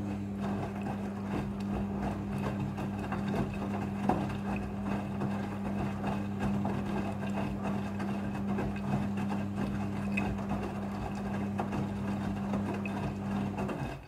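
Front-loading washing machine in its wash cycle: a steady motor hum under the churning and sloshing of wet clothes tumbling in the drum, with scattered light ticks. It cuts off suddenly at the end.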